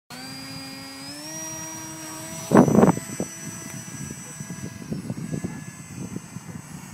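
Electric motor and pusher propeller of a HobbyKing Bixler foam RC plane running with a steady whine. The pitch steps up about a second in as the throttle is raised, then the whine fades as the plane flies away. A loud rush of wind noise hits the microphone about two and a half seconds in, and gusty buffeting follows.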